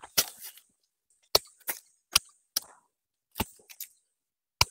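Hand pruning shears snipping through the branches of an old pine, a series of about eight short, sharp clicks at uneven intervals, as dead and overlapping branches are cut away.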